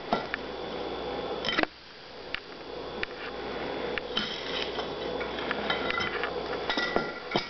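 A pan being handled, with a few light knocks and clatters scattered through, the sharpest about a second and a half in and two more near the end.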